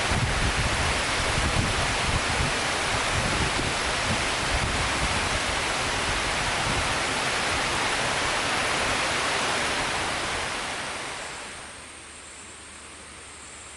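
Steady rain hiss, heavy and even. About eleven seconds in it fades to a much quieter background hiss.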